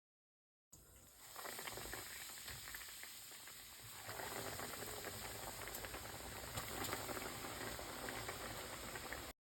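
Breaded chicken cutlets deep-frying in hot oil: a steady sizzle full of fine crackles. It starts about a second in and cuts off suddenly just before the end.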